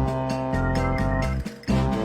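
Background music: keyboard-led instrumental with steady pitched notes over a bass line.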